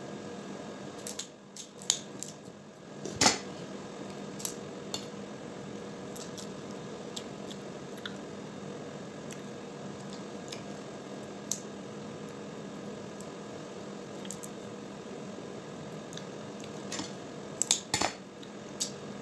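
Crab-leg shells being snipped with kitchen scissors and cracked by hand: scattered sharp clicks and crunches, the loudest about three seconds in and a quick cluster near the end, over a steady low hum.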